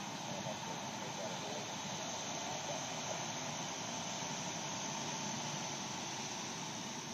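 Fire crew trucks driving slowly past in a procession: a steady wash of engine and road noise, with a steady high buzz over it.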